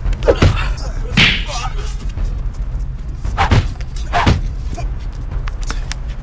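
Staged fistfight blows: a handful of sharp slaps and thuds, the strongest about a second in and two more around three and a half and four seconds in, over a steady low rumble.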